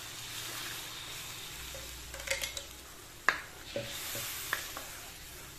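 Water poured into spice paste frying in a hot wok, sizzling and hissing as a spatula stirs it. The spatula knocks and scrapes against the wok several times; the sharpest knock comes about three seconds in.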